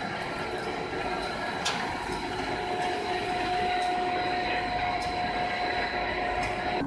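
PET sheet extrusion line running: steady industrial machine noise with a thin high whine and a mid-pitched tone that grows stronger about two and a half seconds in. One sharp click comes just under two seconds in.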